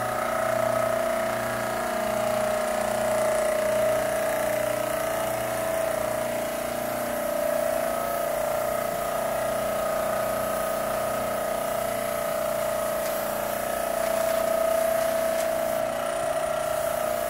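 Electrostatic spray-painting rig running while the gun sprays paint onto metal lockers: a steady, unchanging whine with a hiss over it.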